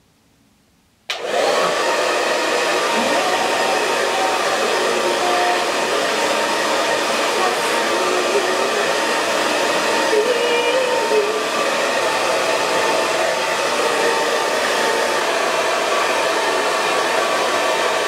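Parlux 385 hair dryer switching on about a second in, then running steadily: a loud, even rush of air with a faint steady motor whine in it.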